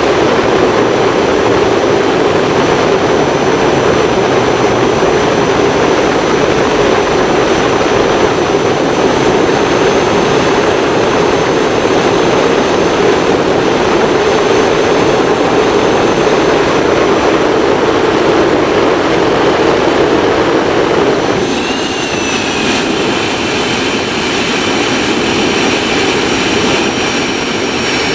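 Handmade turbojet engine, fitted with a new compressor wheel and housing, running on a test stand: a loud, steady rush of jet noise with thin high-pitched turbine whines above it. About 21 seconds in, the noise drops in level and a lower, steady whine comes through.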